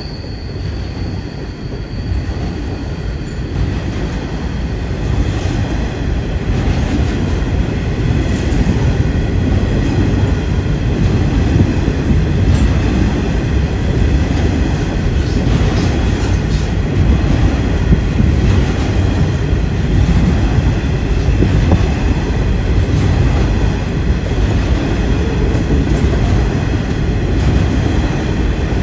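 Freight train rolling past, a steady rumble of wagons on the rails that grows louder over the first few seconds and then holds.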